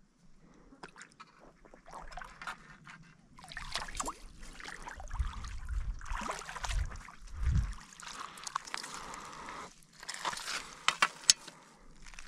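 Water splashing in irregular bursts as a hooked common carp thrashes in a landing net and is lifted out of the river, heaviest in the middle of the stretch. Near the end come a few sharp clicks as the net comes down on shore pebbles.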